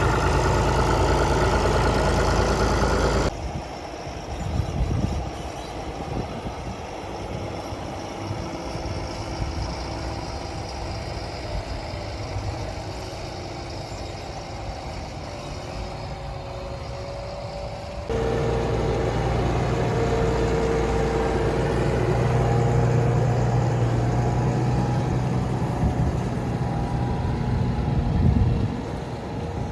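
Tractor engines running steadily, heard in three successive stretches that switch abruptly: loud at first, quieter from about three seconds in, then loud again from about eighteen seconds in.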